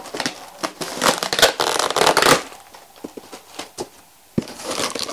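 Cardboard packaging being handled: box flaps scraping and rustling as a box is opened, loudest in the first half, then a few sharp taps and knocks as an inner box is lifted out.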